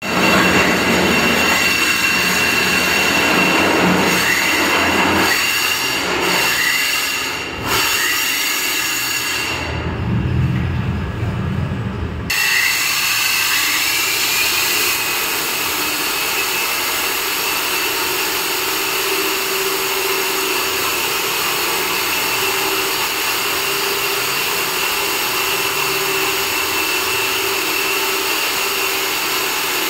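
Handheld electric diamond core drill running continuously, its core bit grinding a hole through the concrete wall of a water sump, with a steady high whine over the grinding.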